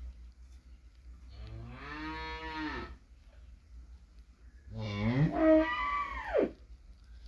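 Cow mooing twice: a long, even moo, then after a short gap a second, louder moo that rises and then drops away at the end.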